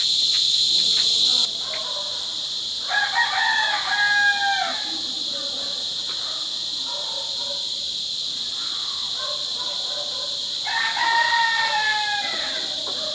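A rooster crowing twice, each crow about a second and a half long and falling in pitch at the end, over a steady high drone of insects.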